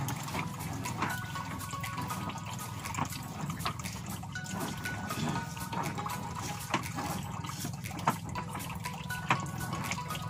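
Water lapping and trickling against the hull of an outrigger fishing boat, over a steady low hum, with a few sharp knocks in the second half.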